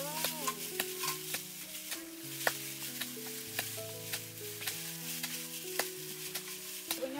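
Food sizzling and crackling as it cooks, with sharp pops throughout, under background music of slow, held notes that change pitch every second or so.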